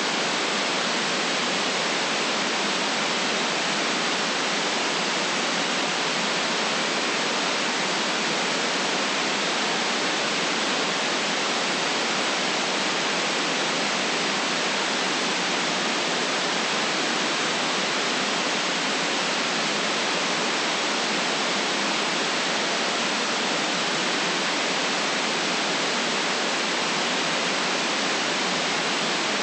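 Steady, even white noise hiss that never changes, with no deep bass and no top treble.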